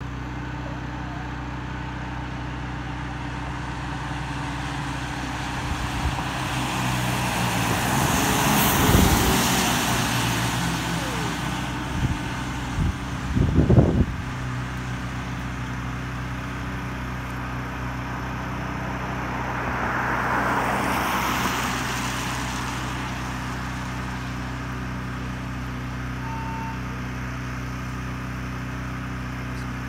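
A fire engine drives past on the road, its engine and tyre noise swelling and fading about nine seconds in. A few knocks follow around thirteen seconds, and another vehicle passes about twenty seconds in. A steady low engine hum runs underneath.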